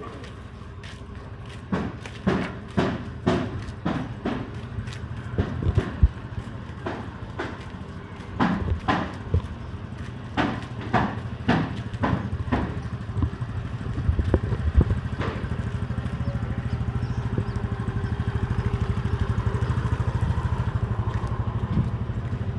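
Footsteps of someone walking at an even pace, about two steps a second. From about two-thirds of the way in, an engine runs steadily underneath and grows a little louder.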